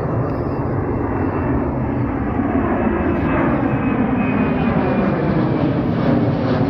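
Boeing 767-300 freighter's twin jet engines at takeoff climb power as the plane passes low overhead: a loud, steady jet rumble with a thin high whine that slides slowly down in pitch, the sound growing a little louder throughout.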